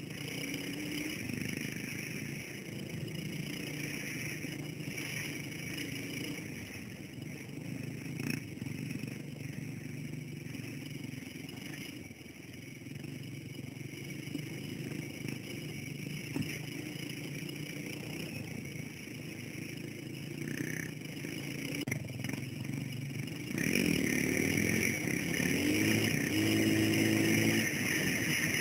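Dirt bike engine running under way over a rough dirt track, with wind on the microphone. About three-quarters of the way through the sound turns abruptly louder, and the engine pitch rises as it revs.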